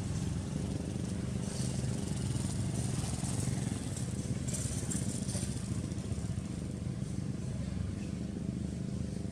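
A small motor running steadily, a low even hum, with a few brief hissing rustles over it.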